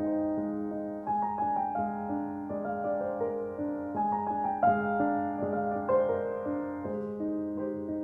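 Gentle, slow piano background music, soft sustained notes with a new chord or melody note about every second.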